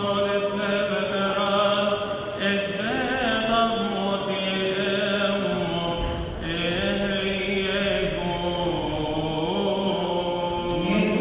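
A priest's male voice chanting a Coptic Orthodox liturgical hymn unaccompanied: long held notes with wavering melismatic ornaments.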